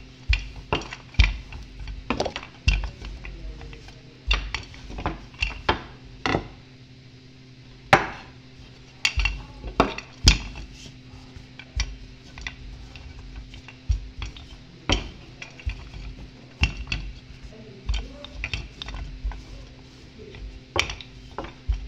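Wooden rolling pin knocking and clacking irregularly against a countertop as pizza dough is rolled out, with a steady low hum underneath.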